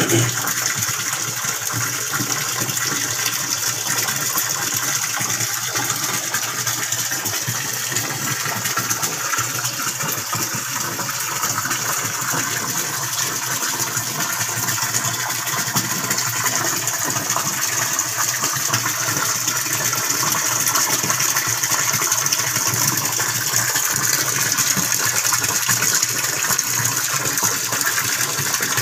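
Water running steadily into and through a fish-fry rearing tank, a constant even rush with no pauses.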